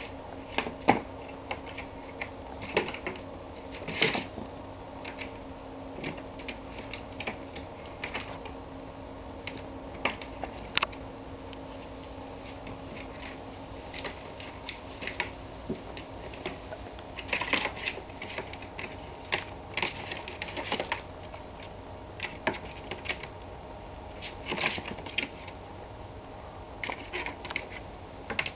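Irregular clicks, taps and scrabbling of a kitten's claws and paws on a plastic laundry basket as it climbs over the rim and plays, the light basket knocking now and then.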